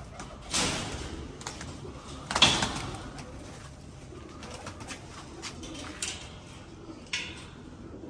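Domestic pigeons cooing, with a few short rustling bursts, the loudest about two and a half seconds in.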